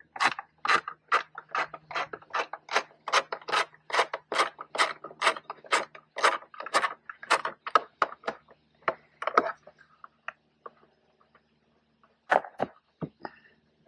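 Socket ratchet clicking in quick, even strokes, about two or three a second, backing out the bolts that hold a minivan tail light; the clicking stops about ten seconds in, and a few louder knocks follow near the end.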